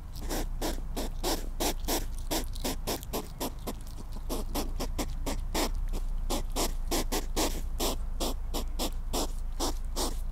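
Hedgehog snuffling: a fast, even run of short sniffs and snorts, about four a second.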